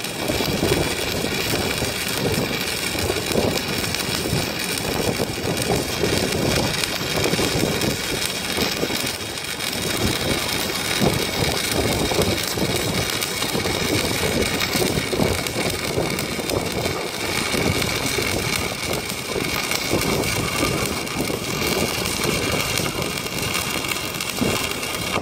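Welding arc crackling steadily through one long continuous weld, then cutting off abruptly at the end.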